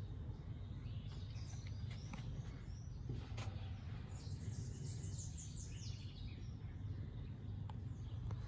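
Birds chirping in short, quick falling calls, heard in several clusters over a steady low background hum.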